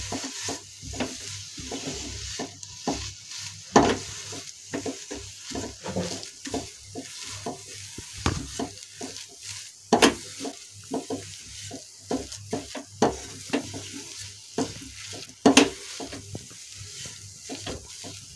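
Spatula stirring and scraping a thick coconut and milk-powder paste in a nonstick frying pan, with irregular scrapes and taps several times a second and a few sharper knocks against the pan. The paste is cooking over the gas, and a faint steady hiss runs beneath the stirring.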